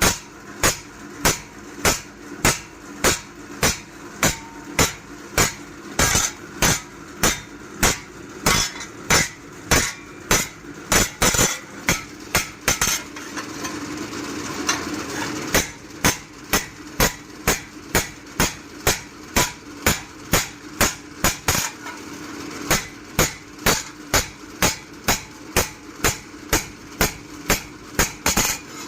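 Hand hammer striking a forage-cutter blade on an anvil in a steady rhythm of about two blows a second. The blows break off for about three seconds near the middle, then resume.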